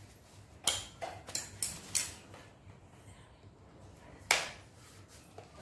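Scissors snipping through the seal on a smartphone's cardboard retail box: about five sharp snips close together over a second and a half, then one louder sharp click a couple of seconds later.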